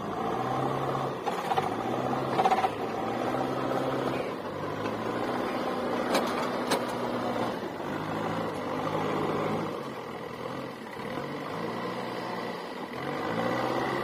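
Diesel engine of a JCB 3DX backhoe loader running under load while its front bucket pushes brush and soil. The engine note rises and falls as the throttle comes up and eases off, with two sharp knocks about six seconds in.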